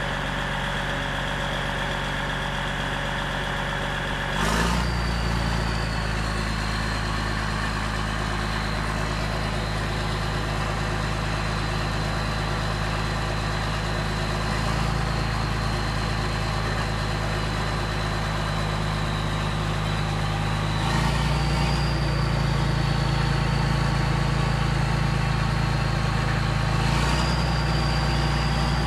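Big turbo diesel engine of a heavy wheeled machine running cold, with a thin high turbo whine over the steady engine note. The engine note and the whine step up about four seconds in, again about twenty seconds in, and once more near the end.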